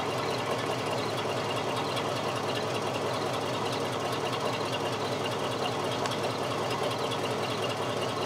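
Ford Bronco's 400 V8 running steadily, freshly started after an oil change. Its oil pressure is low, which the owner puts down to the oil pressure problems these 400 engines have always had.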